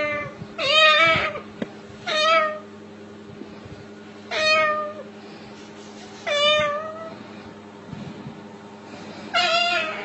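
A string of cat-like meows, about five, one every second or two, each falling in pitch. A steady low hum runs underneath.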